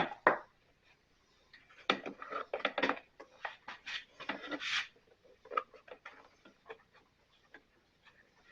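Parts of a backpack leaf blower being handled during disassembly: two sharp clicks at the start, a busy spell of scraping and rattling of hard parts, then scattered light ticks and knocks.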